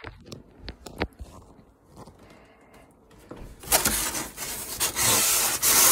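IKEA DUNDERGUBBE corrugated cardboard moving box being handled and folded. A few light knocks and taps in the first second, then, from a little past halfway, a loud scraping and rustling of cardboard flaps rubbing as they are pushed into place, close to the microphone.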